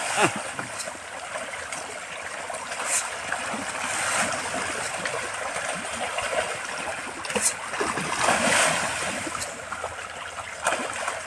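A shoal of fish splashing and churning the surface of a pond in a steady, continuous patter of water, with a few louder splashes.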